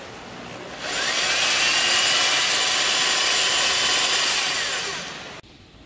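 Electric winch motor of a portable lifter running and turning its steel-cable reel. The whine rises as the motor starts about a second in, holds steady, then falls away and stops shortly before the end.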